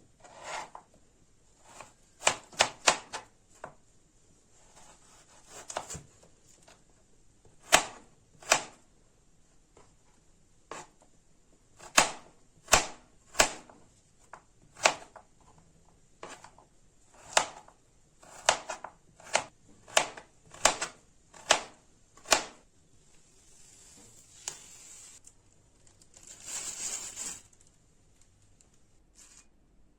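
Kitchen knife cutting taro on a cutting board: irregular sharp chops, some in quick runs of two or three, with a short scraping rush near the end.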